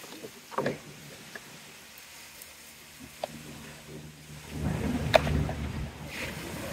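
Light clicks and rubbing of a plastic string-trimmer spool being turned over in gloved hands, with the sharpest click about five seconds in. Underneath is a steady low outdoor rumble with a faint hum.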